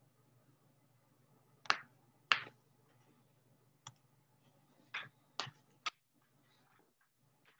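Six sharp clicks at uneven spacing, the first two the loudest, over a faint steady low hum.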